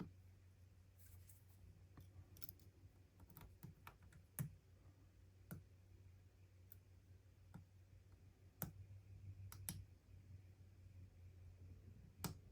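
Faint, irregular clicks and taps of a lock pick and turning tool working inside a padlock.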